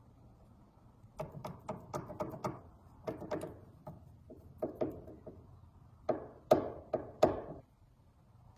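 Hard knocks and clicks in quick clusters of a few strikes each, the loudest group near the end: hard parts being tapped or knocked together during restoration work.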